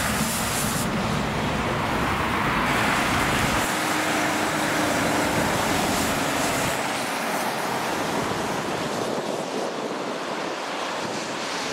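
Steady rushing of motorway traffic, the tyre and engine noise of passing trucks and cars. A low rumble fades out about seven seconds in as the nearest vehicles move away.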